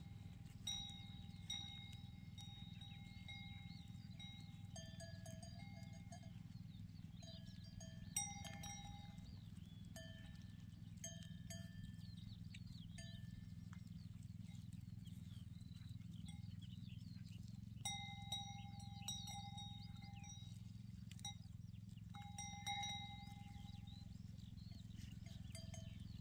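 Small bells on a grazing goat herd clinking and ringing at a few different pitches, coming and going irregularly, over a steady low hum. Birds chirp faintly in the background.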